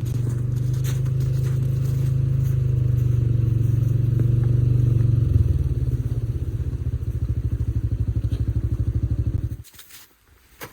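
ATV engine running close by, settling to an even, pulsing idle about five seconds in, then stopping abruptly near the end.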